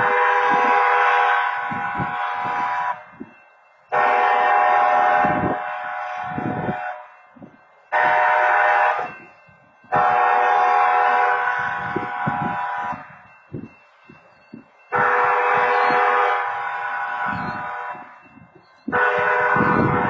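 Railroad crossing wayside horn sounding the standard crossing pattern of two long blasts, one short and one long, a chord of several tones, then starting the pattern again near the end. It is sounding with no train present, set off by a false activation of the crossing equipment.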